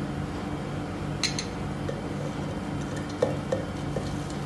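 A metal spoon clinking and scraping against a ceramic bowl as chopped coriander and parsley are spooned into a plastic blender beaker: a sharp double clink about a second in, then a few light taps near the end. A faint steady low hum sits underneath.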